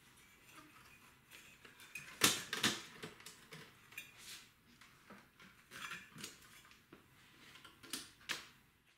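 Light clicks and knocks of plastic and metal parts being handled as the CD player's front is taken off a Philips FW68 mini hi-fi, the loudest a couple of seconds in.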